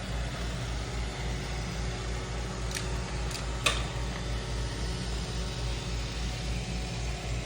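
Robot vacuum running with a steady motor hum and low rumble, with three short clicks a little past the middle, the third the loudest.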